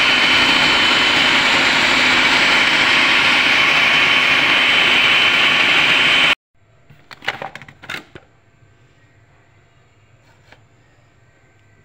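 Electric food chopper running steadily at full speed, grinding fried gram-flour fritters into coarse boondi-like crumbs, then switched off suddenly about six seconds in. A few short knocks follow about a second later.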